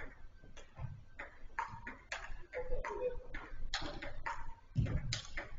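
Football being kicked and bouncing during indoor small-sided play: a string of irregular sharp knocks, the loudest thud just before the end, with a faint distant shout in the middle.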